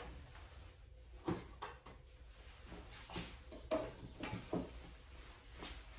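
A few soft, irregularly spaced clicks and knocks of small grooming objects being handled, over a low steady hum.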